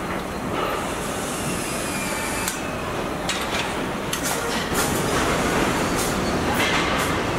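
Car assembly line machinery running with a steady mechanical rumble, with short sharp hisses and clicks from the overhead pneumatic gripper fixture scattered through the second half.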